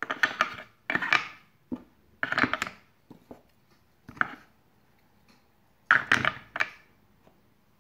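Wooden pieces of a purpleheart dice tower set knocking and clacking as they are set into their purpleheart wooden storage box, in about six short bursts of knocks with brief pauses between.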